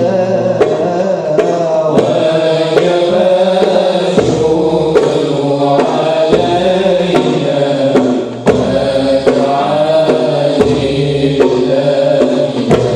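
Voices chanting a devotional song together, with sharp hand-drum strikes keeping time.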